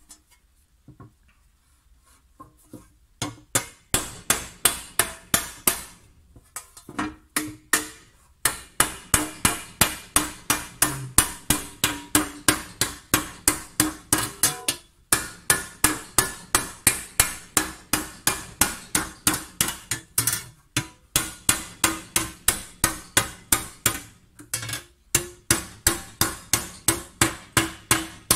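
Round-headed hammer striking a copper tray blank to raise it: quick, even blows about three a second, each with a short metallic ring. The blows start about three seconds in and are broken by a few brief pauses.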